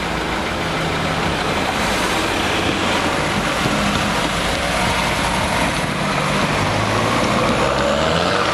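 Diesel engine of a MAN TGX 500 truck tractor unit running as it rolls slowly toward the gate, with a van driving past near the start.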